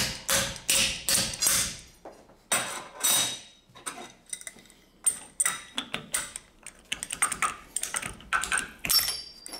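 Hammer blows on an aluminium test piece clamped in a vise, bending it over at a brazed joint in a bend test. Sharp, even blows about three a second at first, then slower, less regular and lighter taps.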